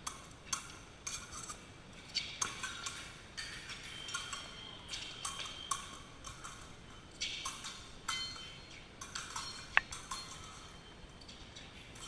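Steel fencing blades clicking and clinking together in quick, irregular contacts, some followed by a brief metallic ring, with one sharper strike near the end.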